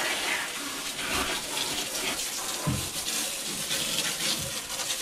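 Garden hose spraying a steady stream of water into a jet ski's open engine compartment, a continuous splashing hiss as it rinses soap off the hull and engine parts.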